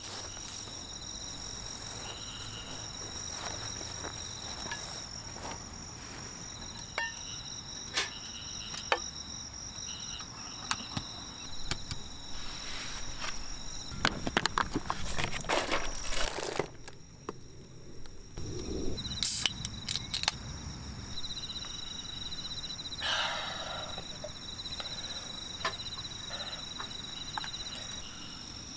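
Night insects trilling steadily in two high tones, with scattered clicks and rattles as a plastic camping cooler is handled and opened about halfway through. The trilling breaks off briefly just after the cooler sounds.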